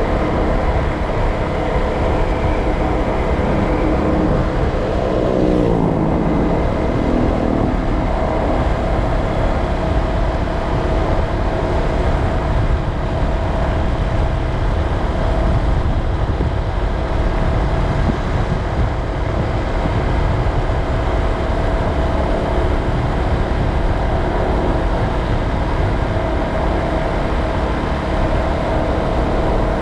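Steady road traffic noise from motor vehicles, with one engine dropping in pitch about five seconds in.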